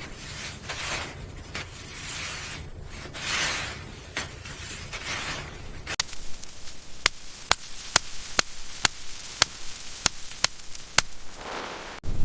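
A rushing noise that swells and fades several times, then, from about halfway through, a run of sharp knocks, roughly two a second.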